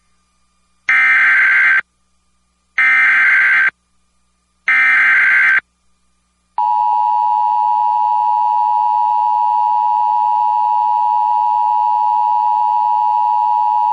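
Emergency Alert System header: three short screeching bleats of SAME digital data, about a second each with a second between them. Then comes the EAS two-tone attention signal, a steady harsh dual tone that starts about halfway through and holds. Together they mark the start of a broadcast severe thunderstorm warning.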